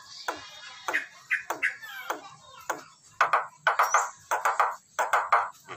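Jalak Nias starling calling: a quick series of short notes sweeping down in pitch, then loud, harsh repeated notes about twice a second.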